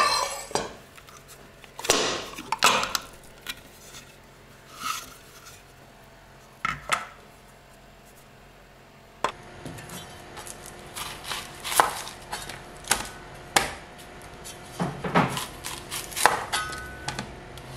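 Kitchen clatter: a plastic food processor bowl and its blade being handled and scraped over a frying pan, with scattered knocks. Later a kitchen knife cuts through an onion onto a plastic chopping board, a few sharp knocks.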